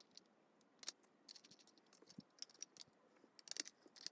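A screw being screwed down through the acrylic top plate of an enclosure: faint, scattered small clicks and ticks as it turns.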